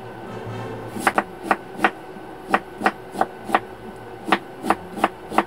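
Kitchen knife chopping a Korean radish into strips on a wooden cutting board: about a dozen sharp knocks, starting about a second in, two to three a second.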